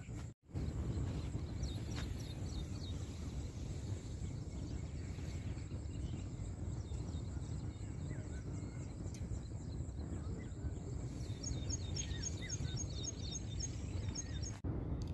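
Steady low wind rumble on the microphone in open fields, with small birds chirping faintly; about two-thirds of the way in, a quick run of repeated high chirps. The sound cuts out briefly just after the start.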